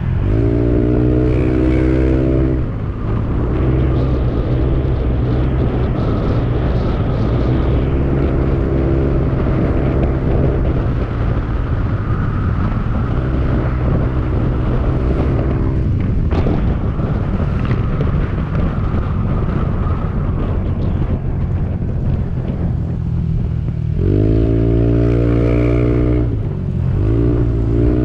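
Motorcycle engine running at road speed with wind and road noise; its note swells and drops back several times as the throttle is opened and eased.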